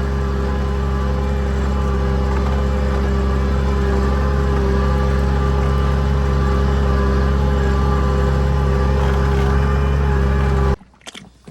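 Tractor engine running steadily under load while ploughing. It cuts off abruptly near the end.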